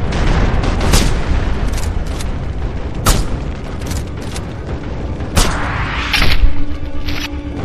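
Gunfire and booms from a mobile shooting game played on a phone: a string of sharp shots over a steady rumble, with a little music.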